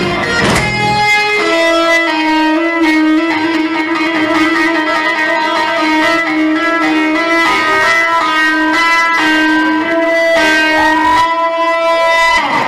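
Unaccompanied electric guitar holding a long sustained note with vibrato, with a second note sliding up near the end.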